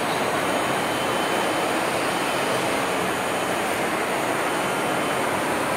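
Steady machinery noise from a running gantry CNC milling machine, an even hum with no distinct knocks or rhythm.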